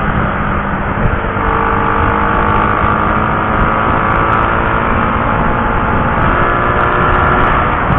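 Honda CB150R single-cylinder motorcycle engine running steadily at cruising speed, over a steady rush of wind and road noise.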